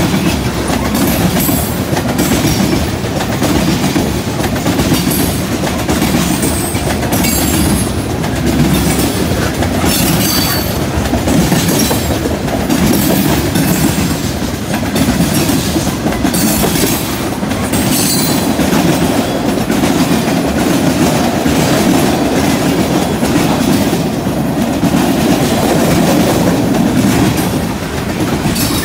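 Freight cars of a CN train rolling past at steady speed, the loud, continuous rumble and clatter of steel wheels on rail as tank cars and then boxcars go by. Brief high-pitched squeals from the wheels come and go.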